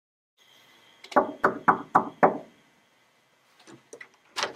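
Knuckles knocking five times on a wooden door, about four knocks a second, then a few lighter clicks of the door handle being worked near the end.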